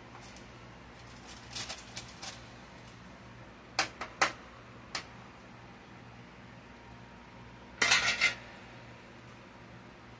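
Metal baking pan clinking and knocking on the stovetop as roasted squash pieces are moved about in it: a few light clicks, two sharp clinks about four seconds in, and a short loudest clatter about eight seconds in.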